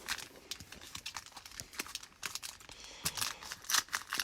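Foil wrapper of a trading-card pack crinkling and tearing as it is handled and opened, a run of irregular small crackles.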